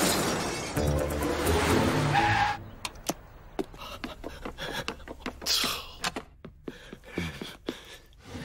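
Cartoon background music over car traffic noise, cutting off suddenly about two and a half seconds in; after that, only scattered soft knocks and clicks.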